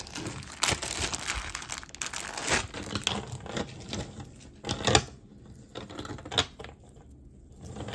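Wrapping crinkling and rustling as jewelry is unpacked by hand, with a few sharp clicks among it. It quietens near the end.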